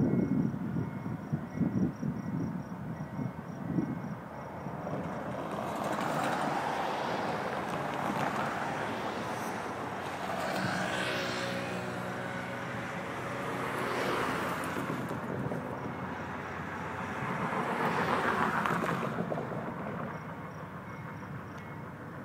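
Road vehicles passing one after another, each a broad noise that swells and fades, four times in all. Wind gusts on the microphone in the first few seconds.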